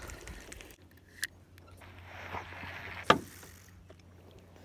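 Spinning rod and reel being handled: a light click, a soft rustle, then one sharp click about three seconds in.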